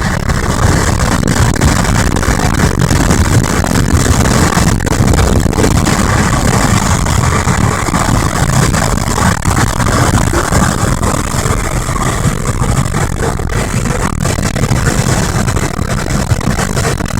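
Steady road and wind noise heard inside a car driving on a highway: a loud, even low rumble.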